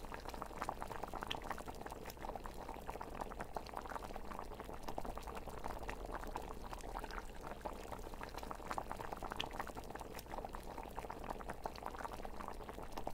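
A pot of liquid bubbling steadily at a boil, a constant crackle of small popping bubbles.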